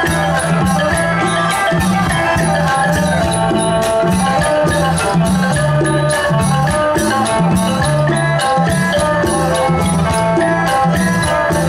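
Isan pong lang folk band playing an instrumental passage: sustained melody lines over a repeating bass figure and a steady percussion beat with shaker-like rattling.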